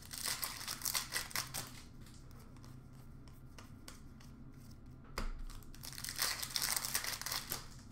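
Crinkling and tearing of a foil trading-card pack wrapper being opened and handled, in two spells, the second starting about five seconds in, with light clicks of cards being handled in between.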